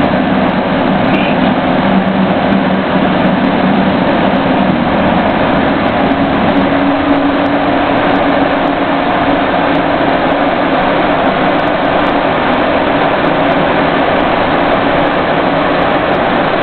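Steady, loud engine and road noise inside the cabin of a moving armored military vehicle.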